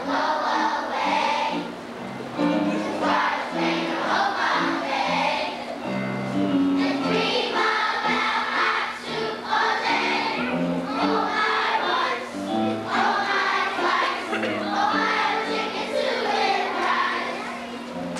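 A choir of young children singing together in unison, accompanied by piano.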